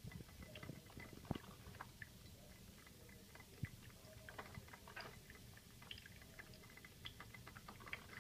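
Four-cup drip coffee maker, switched on and heating, heard faintly: scattered irregular small crackles, ticks and drips, with a slightly sharper click about a second in and another a little before four seconds.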